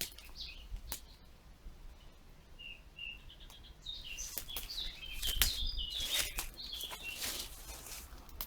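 Small birds chirping in quick runs of short high notes, sparse at first and busiest in the second half, over a few sharp clicks and scuffs.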